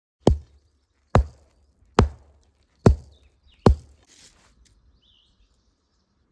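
Five heavy blows, about one a second, each a sharp crack with a low thud under it, followed by a few faint knocks.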